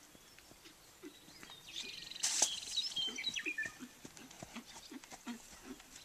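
Horse cantering around a dirt pen: a run of soft, rhythmic hoofbeats. About two seconds in, a sharp click and some high chirps rise over it.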